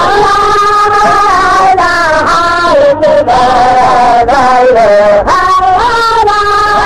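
Chanted singing: voices holding long notes that slide from one pitch to the next, loud and continuous, with a couple of brief breaks.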